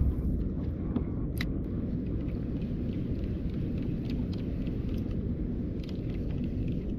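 Steady low rumble of wind buffeting the microphone outdoors on the water, with one sharp click about one and a half seconds in.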